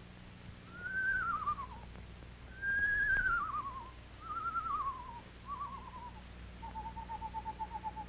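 Screech owl calls: four quavering whinnies, each falling in pitch, then a long, even trill held on one pitch that starts about two-thirds of the way in.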